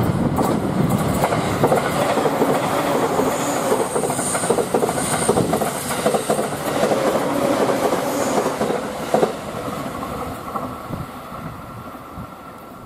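JR East E231-series electric multiple unit passing close by, its wheels running over the rails with a steady whine in the noise. The sound dies away over the last few seconds as the train moves off.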